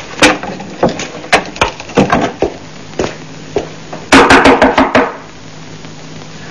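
Scattered wooden knocks and bumps, then a rapid run of knocking on a wooden door for about a second, about four seconds in, over a steady low hum.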